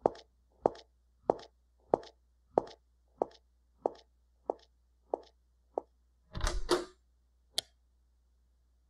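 Footsteps of hard-soled shoes on a tiled floor, a steady walking pace of about three steps every two seconds, growing fainter as the walker moves away. A louder, brief rustling thump follows about six and a half seconds in, then a single sharp click near the end.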